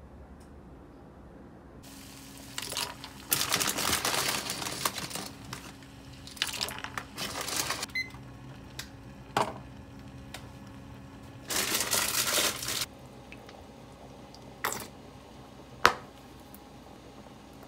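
Household handling noises: three stretches of rustling, scraping noise and three sharp clicks or knocks, the last, near the end, the loudest single sound, over a faint steady hum.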